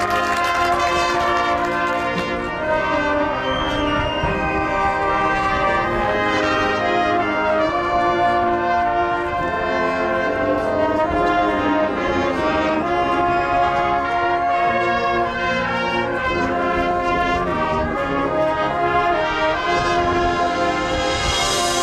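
Marching band playing: massed brass (trumpets, trombones, horns) sustaining chords over drumline percussion.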